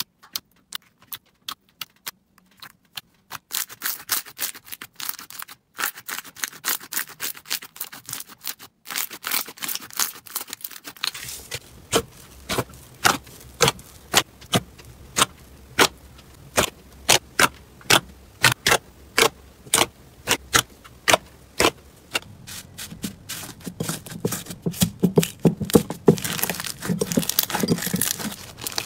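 Slime being squeezed and pressed by hand, giving a long string of sharp crackling clicks and pops. The clicks come thick and fast throughout, getting denser and fuller near the end.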